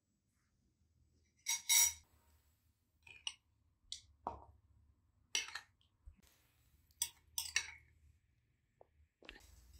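Dishes and utensils clinking: about a dozen separate clinks and knocks spread over several seconds. The loudest come between one and two seconds in and ring briefly.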